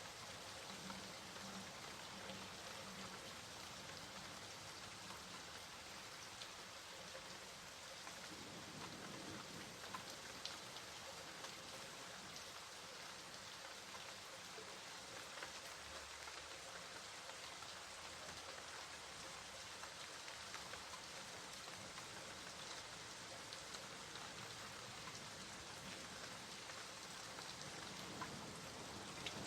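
Steady rain falling on a surface, an even hiss scattered with the ticks of single drops.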